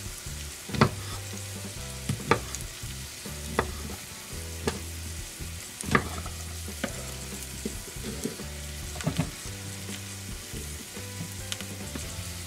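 Onions frying in oil in a small pan, a steady sizzle, with sharp knocks of a knife on a cutting board every second or so as mushrooms are sliced.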